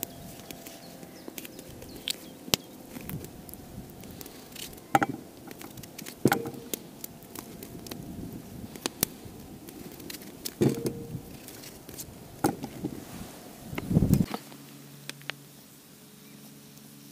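Knife cutting peeled potatoes by hand over an enamel bowl: irregular sharp clicks and knocks a second or two apart, the loudest about 14 seconds in. After that it goes quieter, with a faint steady low hum.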